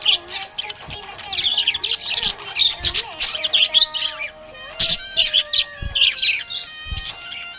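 Budgerigar chirping and warbling: a fast, continuous run of short high chirps mixed with a few longer whistled notes.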